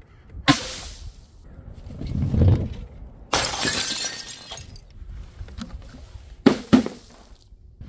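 Things dropped from a height hitting paving stones: a sharp smack about half a second in, then glass shattering with a loud spray of breaking pieces about three seconds in, and two sharp knocks close together near the end.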